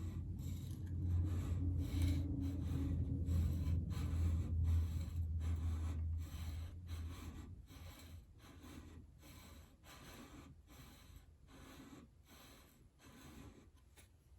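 A chisel being honed with steady back-and-forth strokes, about two a second. A low hum fades out about halfway through.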